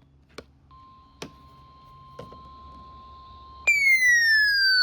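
Electronic emergency-alert tones. A faint steady tone with a few soft clicks, then, about three-quarters of the way through, a loud beep that slides steadily down in pitch for over a second.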